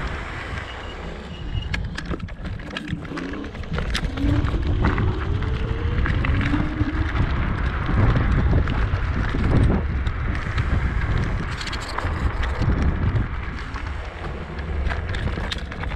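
Wind rumbling on the microphone, with scattered clicks and knocks through it.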